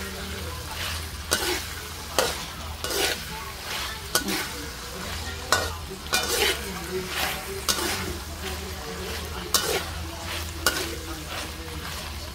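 Metal spatula scraping and knocking against a wok about once a second as diced eggplant and ground beef are stir-fried, over a steady sizzle.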